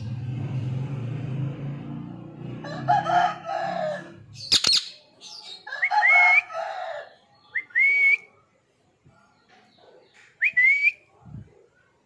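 Ring-necked parakeet calling: a series of short squawks and quick rising whistles, with one sharp shriek about four and a half seconds in. A low hum underlies the first four seconds and then stops.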